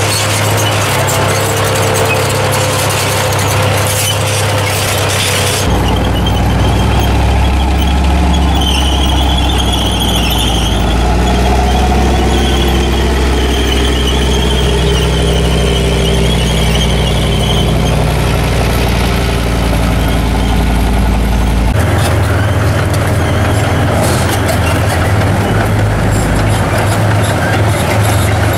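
Full-size tracked armoured vehicles driving past one after another, each on its diesel engine: a T-55 tank, then a Leopard 1 tank from about six seconds in, then an SU-100 tank destroyer near the end. The engines run steadily, and there is a high squeal from the running gear during the middle stretch.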